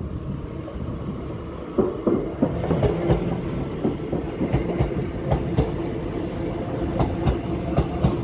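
A passenger train running on the rails, its wheels clicking over rail joints at uneven intervals above a steady rumble and a low hum.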